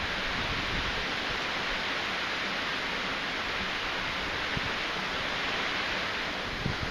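Steady rushing noise of typhoon wind, with an uneven low rumble of wind buffeting underneath.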